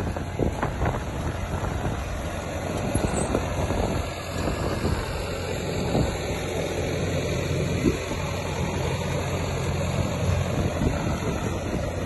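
Tractor engine running steadily while pulling a vegetable transplanter over tilled soil, with occasional short knocks.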